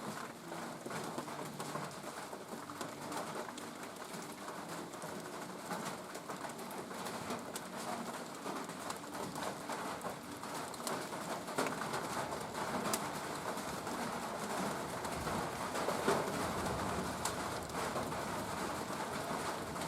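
Steady rain with scattered drips ticking, and a pigeon cooing low and repeatedly. The rain grows a little louder in the second half.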